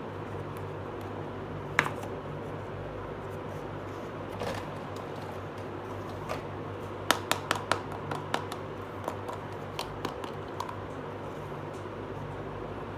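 Small plastic toy pieces clicking and tapping as they are handled and set down: one sharp click about two seconds in, then a quick run of clicks around seven to eight seconds in, over a steady low hum.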